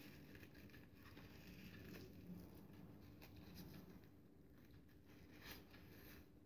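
Faint rustling and crinkling of crepe paper squeezed and shaped by hand, over near silence, with one slightly louder crackle about five and a half seconds in.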